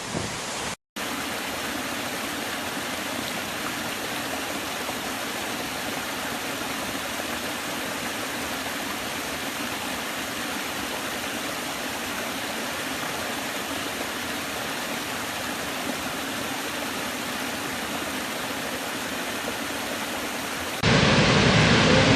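Waterfall: a steady, even rush of falling water. It drops out briefly about a second in, and near the end it cuts to a louder, deeper rush.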